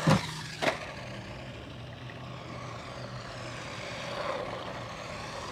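Small electric RC monster truck with a 390 brushed motor driving, its motor whining steadily, with two sharp knocks within the first second.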